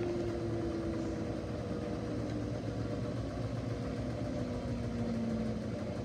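LG direct-drive front-loading washing machine running: a steady hum with a thin motor whine that falls slowly in pitch.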